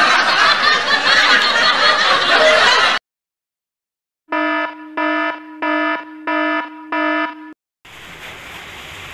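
About three seconds of loud rushing noise that cuts off, then after a second of silence five electronic buzzer beeps, each about half a second long and evenly spaced; near the end faint outdoor background noise comes in.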